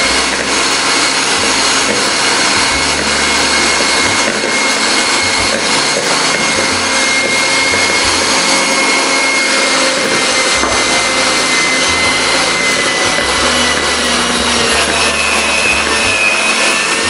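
Electric hand mixer running without a break, its twin beaters whisking flour into milk to make a bread dough; a steady whine rides over the motor's hum.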